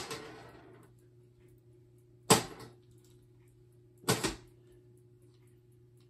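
Three sharp knocks of things being handled: one at the start, one about two seconds later, and a double knock about four seconds in. A steady low hum runs underneath them.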